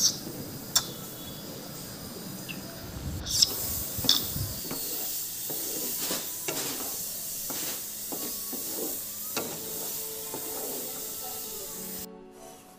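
Sugar syrup boiling with paneer cubes in a non-stick kadai, a steady bubbling hiss, with a wooden spatula knocking and scraping against the pan now and then as the paneer is stirred gently. The sound cuts off abruptly near the end.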